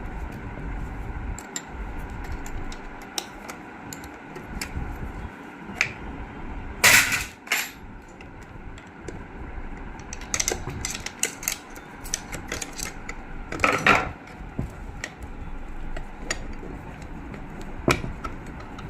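Metal tools and sewing-machine parts clinking and knocking as they are handled during disassembly, in scattered clicks with two louder bouts of clatter, about seven and fourteen seconds in.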